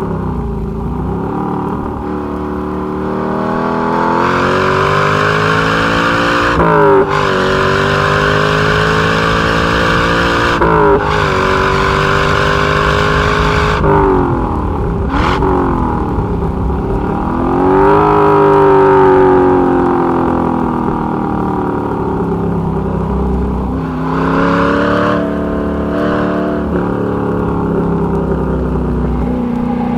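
1961 Corvette's fuel-injected 283 V8 (315 hp) at high revs, climbing in pitch through the gears with quick gear changes where the engine note breaks and drops, then falling away on deceleration and building again.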